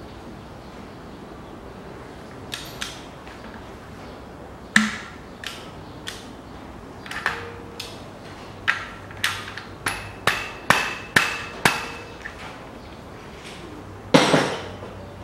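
Irregular sharp metallic knocks and clinks of hand tools working on engine parts, about a dozen of them, bunched quickly in the middle, with a louder ringing clank near the end.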